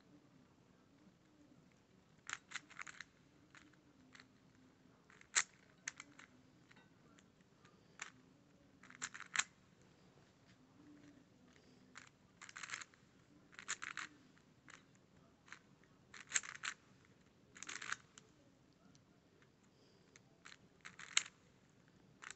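A 3x3 puzzle cube being turned by hand: short clusters of plastic clicking and clacking as its layers turn, with brief pauses between the clusters.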